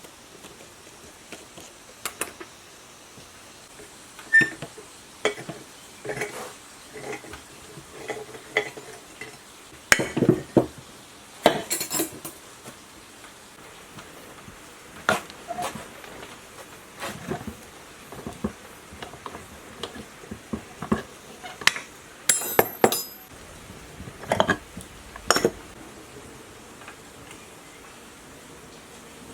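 Irregular metallic clinks, taps and knocks of hand tools and metal parts as a burnt-out water pump is taken apart, with busier clusters of clatter about ten seconds in and again past the twenty-second mark.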